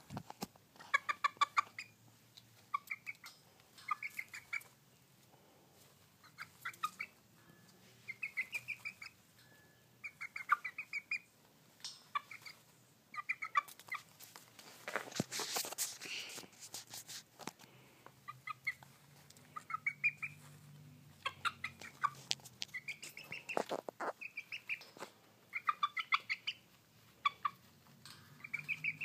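Pet chicken clucking in short runs of quick notes, again and again, with scattered sharp clicks and a brief rustling burst about fifteen seconds in.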